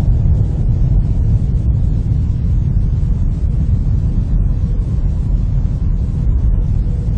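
Deep, steady rumble of a nuclear explosion, a low roar that holds at the same level throughout.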